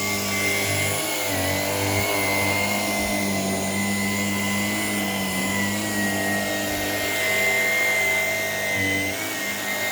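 Shark PowerDetect IP1251 vacuum cleaner running steadily, its motor giving a high whine over a lower hum.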